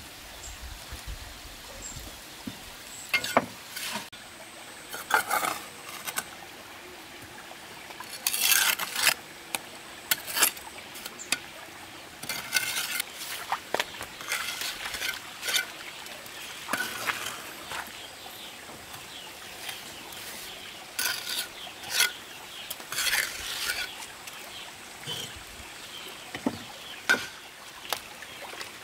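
Steel bricklaying trowel scraping and spreading wet cement mortar on brickwork, in irregular short scrapes, with a few sharp taps as bricks are set and knocked into place.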